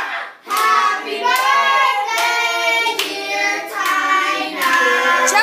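A group of people singing a birthday song and clapping in time.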